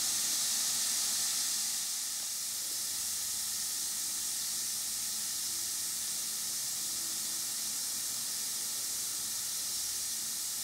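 Three bath bombs fizzing as they dissolve in a basin of water: a steady high hiss that eases off a little about two seconds in.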